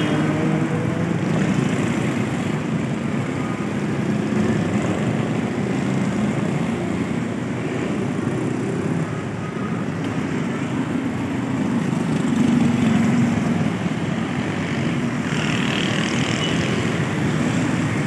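Steady low engine drone with outdoor street noise, and a brief higher hiss near the end.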